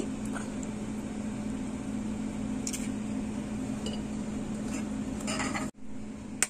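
Steady low hum of room background, with a couple of light clinks from a mixing bowl. The sound cuts out abruptly near the end.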